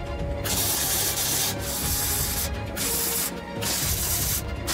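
MIG welder crackling as it welds steel, in four short runs of about half a second to a second, each separated by a brief pause.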